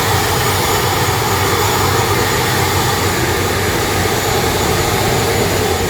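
ATR 42-500 turboprop engine running: a loud, steady drone with a thin high whine held throughout.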